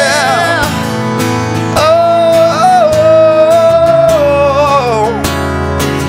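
Acoustic worship music: two acoustic guitars strummed in a steady rhythm under a voice holding long sung notes, the melody sliding down about five seconds in.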